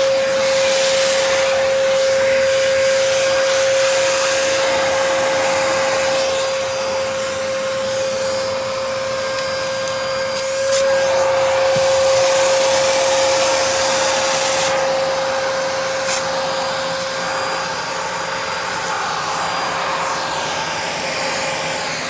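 Dyson DC33 upright vacuum cleaner running, its motor giving one steady whine over the rush of air through the hose tool. The rush shifts now and then as the nozzle is moved over the carpet.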